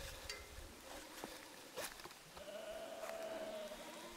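A sheep bleating faintly: one long, steady call about halfway through. A few light knocks of a metal camping cook pot being handled come before it.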